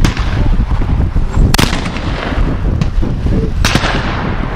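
Shotgun shots on a skeet range: two loud sharp reports about two seconds apart, with a fainter shot between them, over a steady low rumble.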